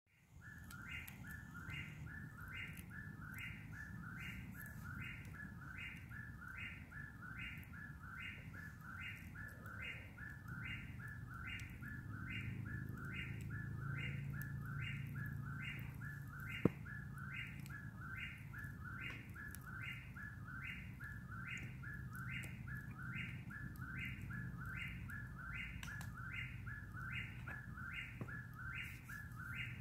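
A whip-poor-will singing its whip-poor-will song over and over in a steady, even rhythm, a little faster than once a second. There is a faint low background hum, and a single sharp pop a little past halfway through.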